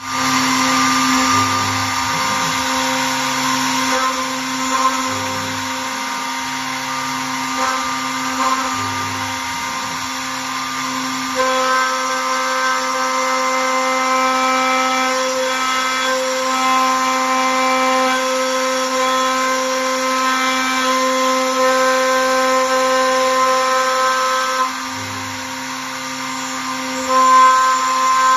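CNC router spindle running steadily with a constant whine while cutting wood. The tone changes about 11 seconds in and again near the end as the cut moves on.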